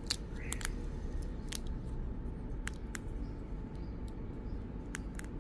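Scattered small clicks and taps as fingers press a Samsung Galaxy S10e's battery and flex connectors into place in its frame, over a steady low hum.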